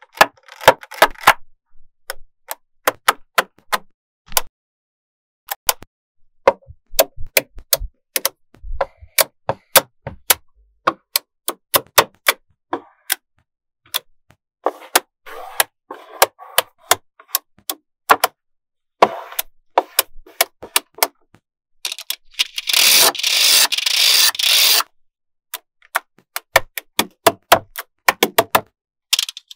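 Small magnetic balls clicking and snapping together as strands of them are pressed onto a built-up wall, in irregular sharp clicks. About three-quarters through, a dense rattle of balls runs for about three seconds.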